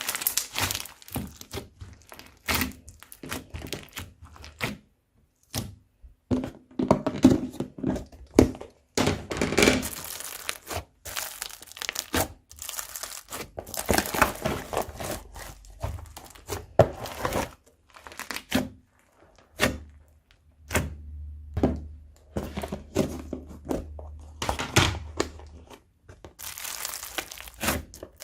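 Hands kneading and squishing slime mixed with crunchy foam, making irregular crackles, pops and squelches in quick clusters, with short pauses between handfuls.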